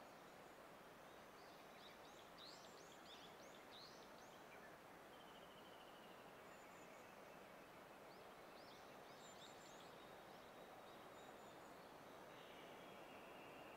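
Faint songbird song over a quiet outdoor hiss: two bursts of quick, high sweeping notes a few seconds apart, with fainter trills between.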